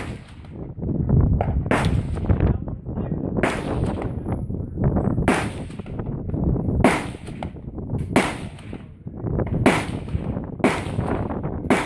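Gunshots on an outdoor shooting range: about nine sharp reports, roughly one every one to two seconds, each with a short fading echo, over a steady low rumble.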